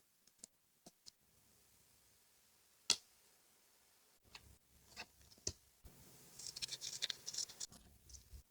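Paper crafting at a desk: a few scattered sharp taps and clicks, then about two seconds of crisp, crackly paper scratching and rustling near the end.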